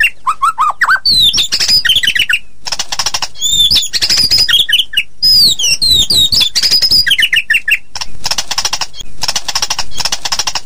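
White-rumped shama (murai batu) singing a fast, varied song: loud whistled notes sliding up and down, quick trilled phrases, and harsh rapid rattling chatter in the last few seconds. It is a fierce, challenging song of the kind played to provoke other shamas into singing.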